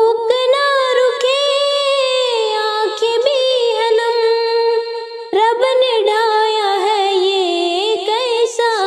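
Solo voice singing a Hindi patriotic song (desh bhakti geet) in a high melodic line with long held notes, pausing briefly about five seconds in before the next line.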